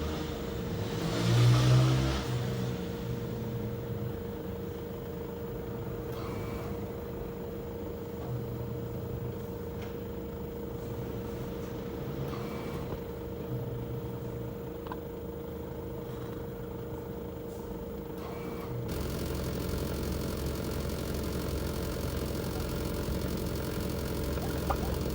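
Outdoor unit of a Panasonic LX-series air conditioner running with a steady hum, and an abnormal noise that the unit has made since new. It swells loudly about a second in and comes back more faintly a few times. About 19 seconds in, a louder low rumble sets in.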